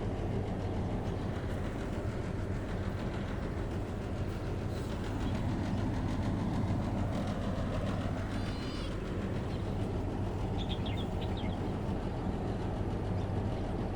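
Steady low rumbling background noise with a constant low hum. A few faint high chirps come about eight and eleven seconds in.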